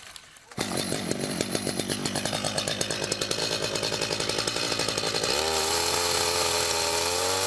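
Two-stroke chainsaw engine that comes in suddenly about half a second in and runs with a rapid, uneven beat at low speed. A little after five seconds it revs up into a steady, rising whine.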